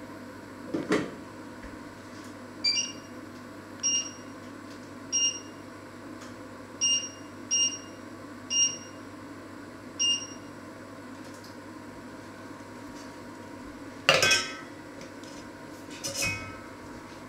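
Electric hob's touch controls beeping: about seven short, high beeps spread over some eight seconds as the settings are pressed. A dull knock about a second in, then a loud clatter of kitchenware about three seconds before the end and a ringing glass clink shortly after.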